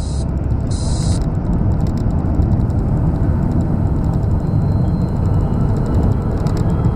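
Steady cabin rumble of a moving car, engine and tyre noise on the road, with a brief snatch of electronic music about a second in.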